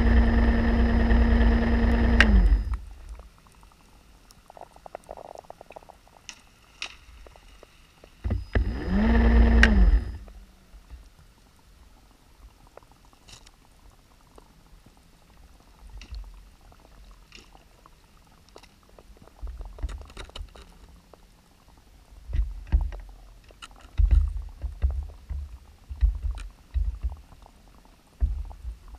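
Electric motor of an underwater scooter humming steadily underwater, winding down with a falling pitch about two seconds in, then spinning up and down again briefly about eight seconds in. After that only faint clicks, then irregular low rumbling bursts near the end.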